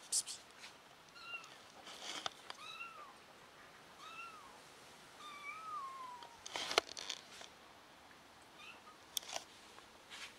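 Kitten mewing repeatedly: short, high calls about every second or so, the one near the middle longer and sliding down in pitch. Sharp knocks and clicks come in between, the loudest about seven seconds in.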